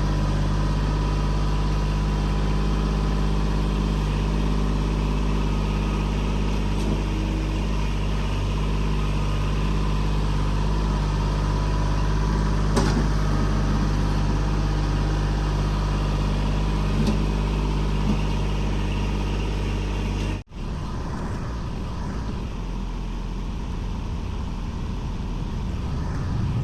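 Kubota L2501 compact tractor's three-cylinder diesel engine running steadily under light load while it grades dirt with the front bucket, with a few sharp knocks. The sound cuts out briefly about 20 seconds in and comes back rougher.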